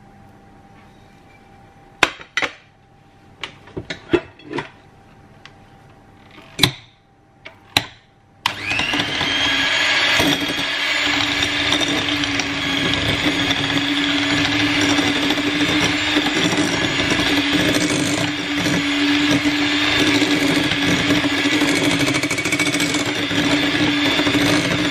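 A few scattered clinks and knocks, then about eight seconds in an electric hand mixer switches on and runs steadily, its beaters creaming room-temperature butter in a glass bowl.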